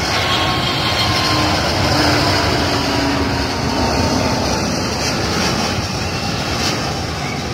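An Airbus A380's four Rolls-Royce Trent 900 engines at takeoff thrust as the jet lifts off and climbs away. The loud, steady jet roar peaks about two seconds in, then slowly fades.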